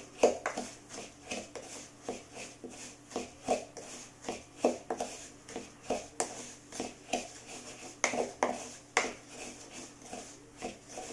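A spice mix of dill, cinnamon and garlic being stirred in a plastic measuring cup: a steady rhythm of short scraping strokes against the cup walls, about two a second.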